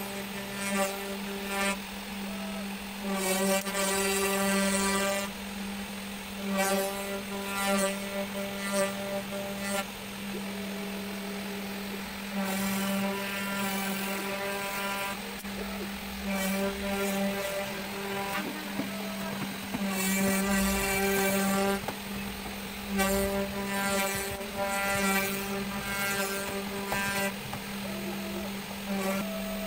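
A DIY CNC router's spindle runs at 12000 rpm with a steady hum while a 90-degree V-bit carves MDF. A higher whine swells and fades every few seconds as the machine moves through the cut.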